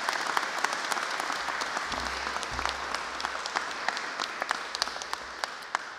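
Audience applauding, many hands clapping at once, thinning out near the end.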